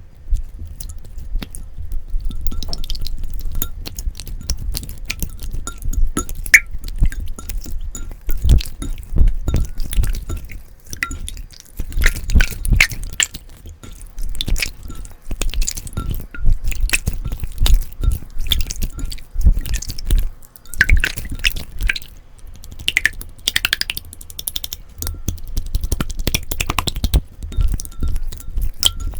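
Hands squishing, stretching and poking slime: a dense, irregular stream of wet clicks, pops and crackles.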